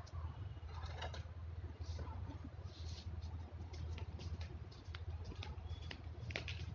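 Scattered light taps, scuffs and clicks of someone moving about on a tiled floor in flip-flops and handling small things, over a steady low hum.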